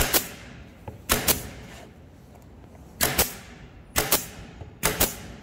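Pneumatic air tacker (pin nailer) firing pins through a 5 mm plywood panel into a wooden box frame: five shots about a second apart, each a sharp double crack.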